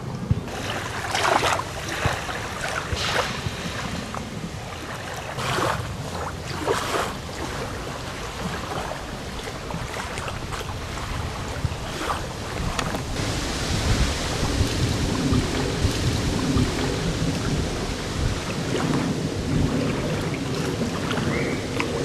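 Wind buffeting the microphone over small choppy waves splashing at the water's edge, rising and falling in gusts.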